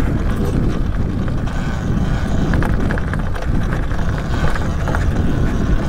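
Wind buffeting the microphone of a rider moving along a dirt trail on a Talaria Sting R MX4 electric dirt bike: a steady, low rumbling rush.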